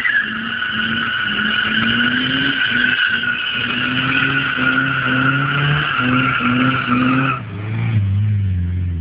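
Volkswagen Voyage and Parati doing burnouts: tyres squealing loudly and steadily as they spin on the asphalt, with the engines held at high revs, the pitch rising and dipping. About seven and a half seconds in the squeal cuts off and a lower, falling engine note follows as a car drives past close.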